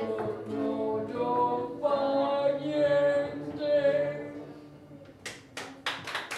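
Voices singing the end of a song to acoustic guitar, the last held note fading away; a few seconds later hand clapping starts.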